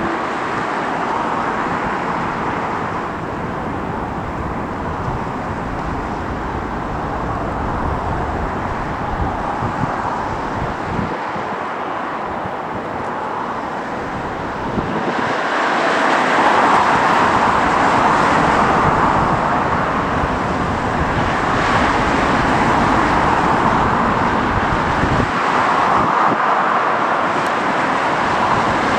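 British Airways wide-body twin-jet airliner on final approach to land: a steady rushing jet-engine noise that swells about halfway through as the aircraft comes close overhead, then stays loud.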